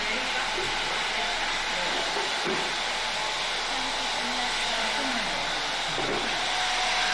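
Hair dryer blowing steadily in a hair salon, drying freshly shampooed hair, with faint voices underneath.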